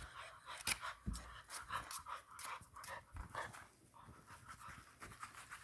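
English bulldog puppy panting faintly, with scattered irregular clicks and knocks of chewing on a hard chew bone.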